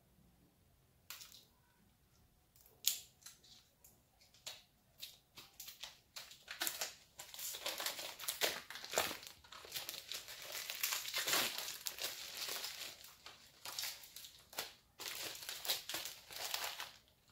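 Plastic wrapping on a hardcover graphic novel crinkling and tearing as it is pulled open by hand: scattered crackles at first, then nearly continuous rustling from about six seconds in.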